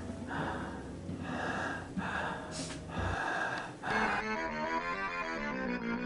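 A person breathing heavily in a run of loud, noisy breaths. Keyboard music starts about four seconds in.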